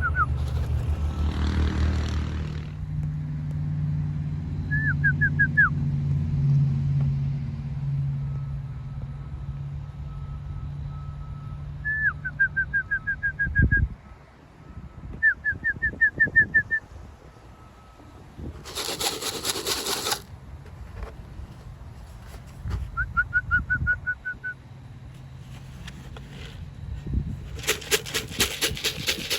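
A low engine drone that fades out about halfway, while a small songbird repeats short trilled phrases; in the second half, two brief flurries of pigeon wings flapping.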